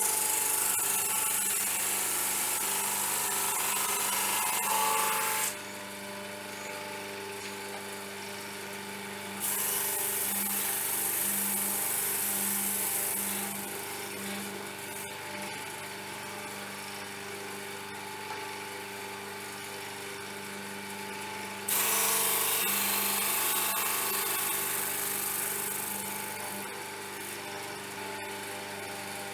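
Mac Afric 560mm drum sander running with a steady motor hum, with three loud stretches of sanding hiss of about four to five seconds each as a board is fed through and the drum cuts, the first right at the start, the second about ten seconds in, the third about twenty-two seconds in. These are test passes to check the drum's level.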